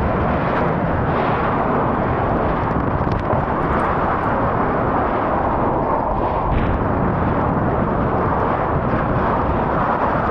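Hurricane-force wind blowing loud and steady, a dense rushing noise with no let-up.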